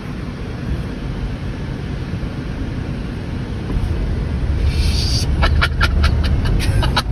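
Electric Tesla Model S Plaid accelerating hard, heard from inside the cabin: a low rumble of tyre and road noise that grows louder about four seconds in as the speed climbs. Near the end, a quick run of short sharp bursts sounds over it.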